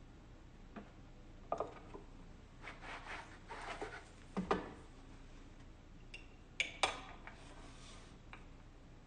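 Hands threading a Singer sewing machine: scattered small clicks and taps, with brief rubbing as the thread is handled. The sharpest clicks come about four and a half and seven seconds in.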